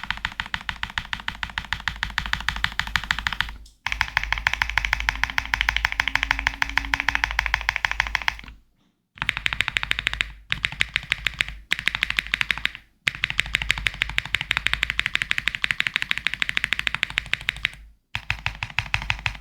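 Kezewa Enter67 V2 mechanical keyboard being typed on fast. Keystrokes clatter in dense runs several seconds long, broken by short pauses, as in a typing sound test.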